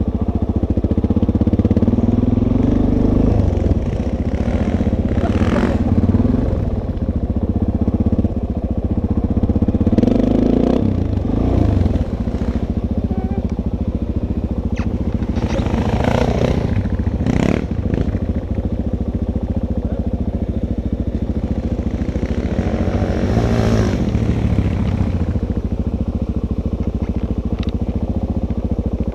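Dirt bike engine running under way on a sandy trail, its revs rising and easing, with several brief rushes of noise over it.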